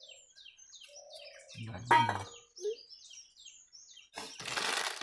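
Small birds chirping over and over in short, quick, downward-sliding chirps, about three a second. A single loud, brief sound comes about two seconds in, and there is a second of rustling noise near the end.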